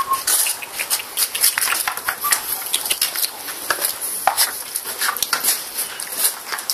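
Dogs' claws clicking and scuffing irregularly on a tiled floor as the dogs move about.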